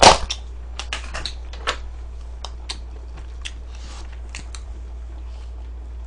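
A spoon clicking and scraping against a small plastic container of rice: one sharp handling noise at the start, then scattered light taps, over a steady low hum.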